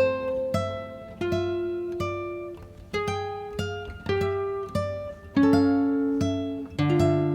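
Background music: acoustic guitar plucked in a slow melody, single notes and chords ringing out one after another.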